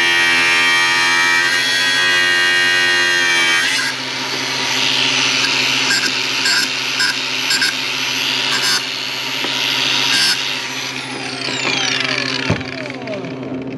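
Power grinder working on the worn latch hook of a ride-on mower's deck-height lever to grind its edges sharp again so it catches better. For about four seconds its motor whines steadily, then it grinds against the metal with a rasping sound in short spurts. Near the end it is switched off and its pitch falls as it spins down.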